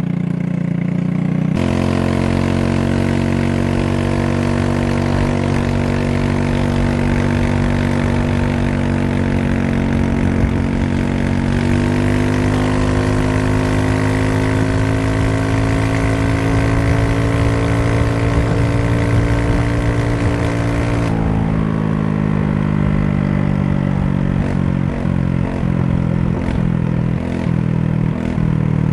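GY6 150cc scooter's single-cylinder four-stroke engine pulling under part throttle, about 60%: the pitch jumps up about a second and a half in, climbs slowly from about twelve seconds, then drops around twenty-one seconds as the throttle eases off, running unevenly with stutters near the end. The rider puts the stumbling down to a weak spark, with the spark plug boot cutting out at high revs. Wind and road rush sit under it.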